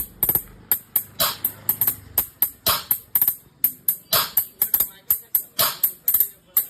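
High-frequency test track played through an Aerons Ultra 722 passive 12-inch PA top speaker: a quick run of sharp, bright tambourine-like hits, about four to five a second, with little bass.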